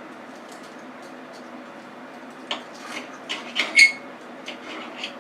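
Cutlery clinking and scraping on a plate while cutting into a piece of chicken: a run of sharp clicks in the second half, one ringing clink the loudest.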